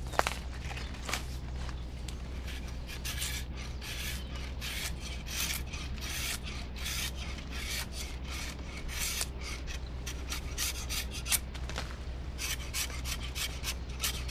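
Carving knife scraping and shaving bark and wood off a green strawberry guava stick, a quick run of short scraping strokes, about two a second, settling into a steady rhythm a few seconds in. There is a single sharp click just at the start.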